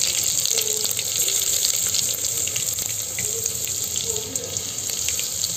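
Cumin seeds and chopped garlic sizzling in hot oil in a steel pressure cooker, a steady hiss with scattered small crackles and pops as the cumin splutters.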